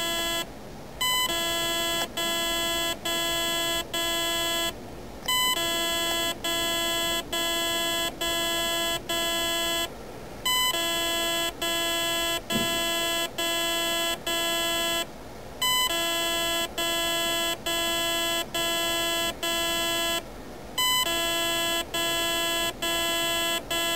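ETTI electronic speed controller in programming mode, beeping a steady, even tone about twice a second in groups broken by one-second pauses, as it steps through its battery cell-count settings.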